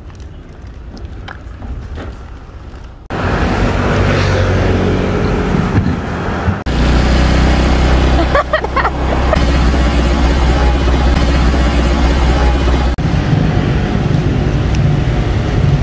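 Steady drone of motor-vehicle engines in street traffic. It starts abruptly about three seconds in and jumps in character at sudden cuts twice more, with a brief gliding tone just past the middle.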